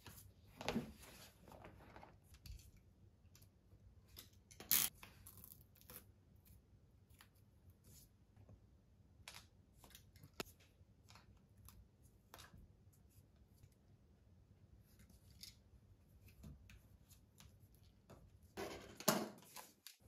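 Hand work on a steering wheel: a utility knife cutting and trimming Alcantara fabric, with rustling and scraping of the fabric and small knocks as the wheel is handled. The loudest scrapes come about a second in, near five seconds, and near the end.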